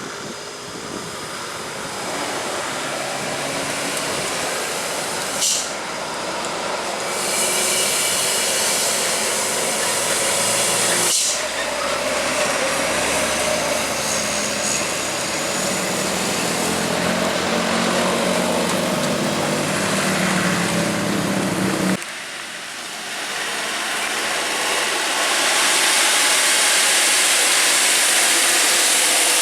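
Diesel dump truck engines running under load as the trucks climb a steep road, with a steady hiss over the engine note. The sound changes abruptly twice, about eleven and twenty-two seconds in.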